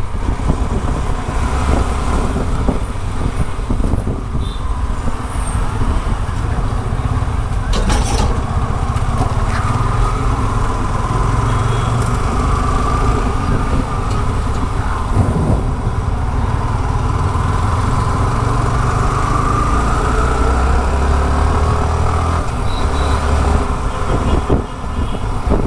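Riding a motorcycle through town traffic: a steady, heavy rumble of wind on the microphone mixed with the bike's engine and passing vehicles.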